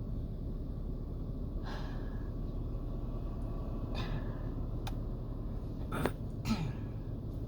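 A person's short breathy sounds in a lull of a sneezing fit: a few brief bursts spread out, the strongest two about six seconds in, over a steady low hum.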